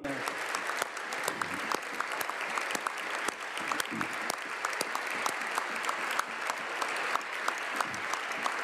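Applause from a chamber of parliamentary deputies: many hands clapping together, dense and continuous.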